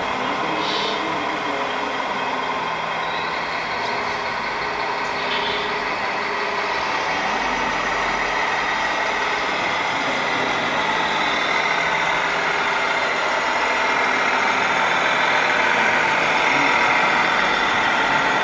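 Simulated diesel truck engine sound from the onboard sound unit of a Tamiya King Hauler RC dump truck, running steadily and getting gradually louder toward the end as the truck drives.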